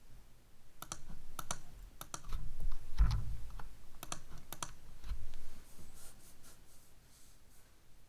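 Typing on a computer keyboard: irregular, spaced-out keystrokes and clicks, with a couple of low thumps, the loudest about three seconds in.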